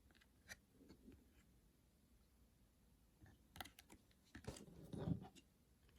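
Faint handling of trading cards: a few light clicks and slides of card on card, with a cluster of sharper clicks and rustles in the second half.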